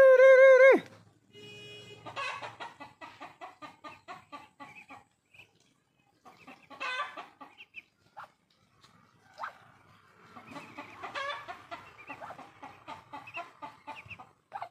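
Ducks calling in quick, repeated chattering bursts, several birds at once. A loud, steady tone lasting about a second comes at the very start.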